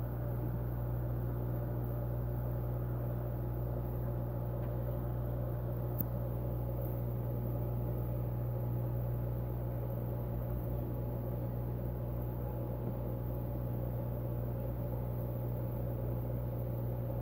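Aquarium equipment running: the steady low hum of an air pump and filter, with the bubbling of an air-stone curtain. One small tick about six seconds in.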